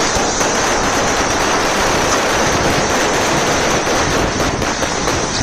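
Rapid, continuous automatic gunfire, a loud crackle of many irregular shots over dense noise, from a war field recording.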